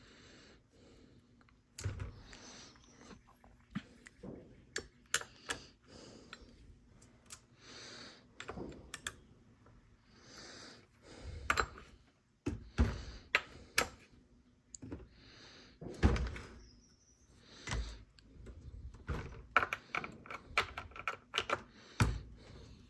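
Stihl MS 250 chainsaw being adjusted with its bar wrench: scattered metallic clicks, ticks and thunks as the chain tensioner is turned and the bar nuts are tightened.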